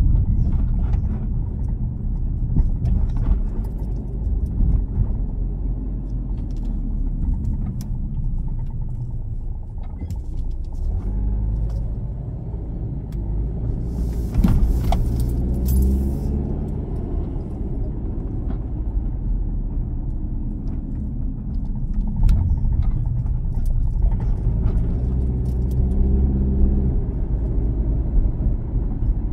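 A car driving, with a steady low rumble of engine and road noise. The engine note rises in pitch twice as the car picks up speed, and there is a brief hissing rattle about halfway through.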